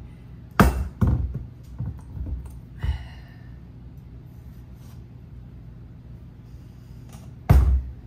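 Heavy thuds of a rock-hard whole acorn squash and kitchen knife against a wooden cutting board as it is forced open: one loud knock about half a second in, several lighter knocks over the next two seconds, then another loud thud near the end.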